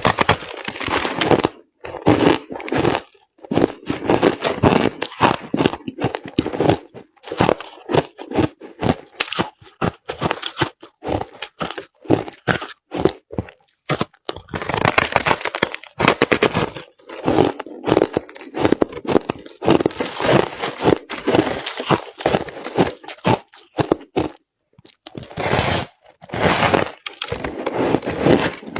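Close-up crunching of crushed ice being chewed, a dense run of irregular cracks and crunches with brief pauses between bites.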